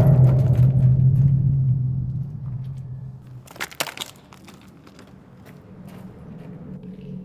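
A deep droning boom from the film's score starts suddenly and slowly fades over about three seconds. About three and a half seconds in come a few crunching steps on gravel and broken glass, over a faint low drone that carries on.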